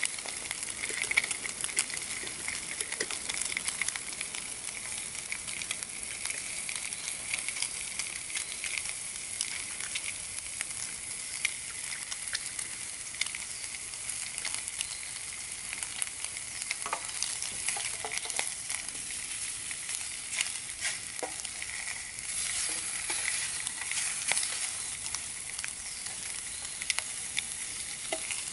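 Bacon sizzling in a steel frying pan over a small camp stove: a steady hiss full of small crackles and pops.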